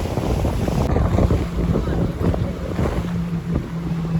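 Wind buffeting the microphone aboard a moving motor boat, over a dense low rumble of engine and water, with a steady low engine hum coming through after a second or so.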